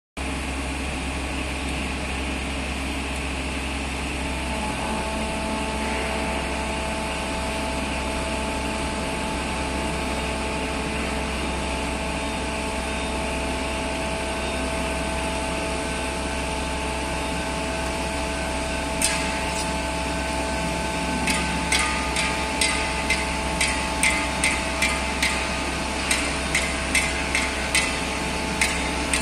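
LS-500 telescopic-boom laser screed running steadily as it levels concrete: a low machine hum, with a steady whine joining about five seconds in. In the last third comes a run of sharp knocks, about two a second, like hammering.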